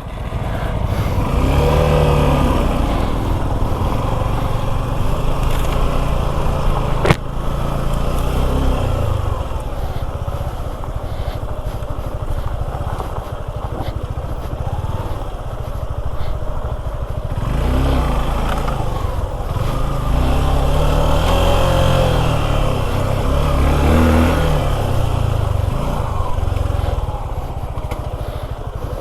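Suzuki V-Strom 250 SX's single-cylinder engine, riding off-road with the revs rising and falling repeatedly. There is a single sharp knock about seven seconds in.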